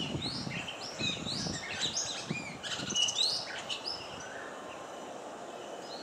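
Oriental magpie-robin singing a fast run of varied whistled notes that sweep up and down in pitch, thinning out a little past halfway. A low steady background rumble lies underneath.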